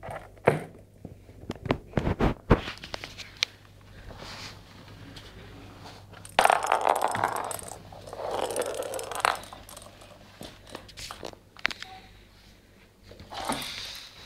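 A kitten playing with a small ball on a wooden floor: a quick run of light clicks and knocks in the first few seconds, then a few seconds of rustling and scraping, and a few scattered clicks near the end.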